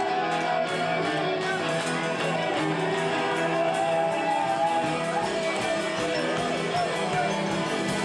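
A rock band playing a song live, with guitar over a fast, steady drum beat; deeper bass fills in about five seconds in.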